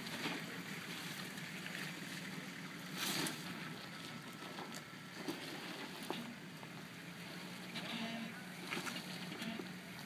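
A 4x4's engine running slowly with a steady low hum as the vehicle creeps down a rutted dirt track, with scattered crunches and cracks, the loudest about three seconds in.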